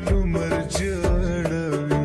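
Pashto tappay song, slowed down with added reverb: held pitched notes over a steady drum beat.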